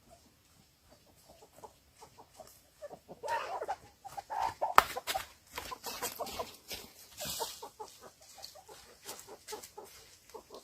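Chickens clucking in many short, quick calls, starting faintly and growing busier a few seconds in, with a few sharp clicks among them.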